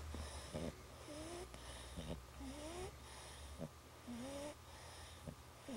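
English bulldog puppy snoring in its sleep: about four breaths, roughly one every second and a half, each a short snort followed by a rising whistling wheeze.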